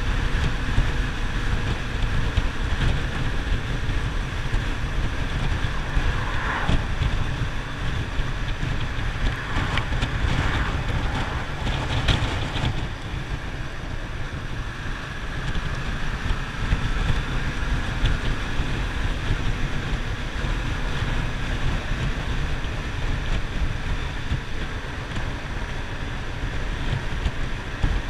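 Wind buffeting the microphone on a moving motorcycle, over the running engine and tyre noise of a Yamaha FZ-07 parallel-twin riding at road speed. A couple of brief louder rushes come partway through.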